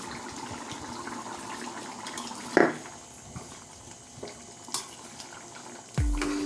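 Steady sound of running water, with one sharp knock about two and a half seconds in. Music with a deep bass starts near the end.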